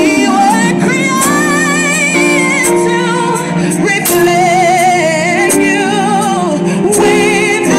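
A woman singing a gospel song with strong vibrato into a microphone, amplified over a PA, over held accompanying chords.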